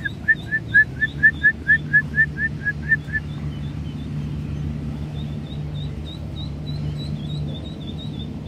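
Mallard ducklings peeping. A loud run of about a dozen quick peeps, roughly four a second, fills the first three seconds, over fainter, higher peeping that goes on throughout.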